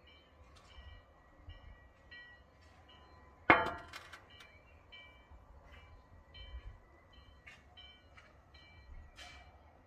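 A drinking glass of beer set down on a glass-topped table: one sharp clink with a brief ring about a third of the way in. Behind it, a short high chirping note repeats steadily, a little faster than once a second.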